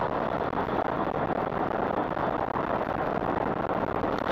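Steady driving noise of a vehicle moving at highway speed, engine and tyre noise mixed, picked up by a dashcam inside the cab.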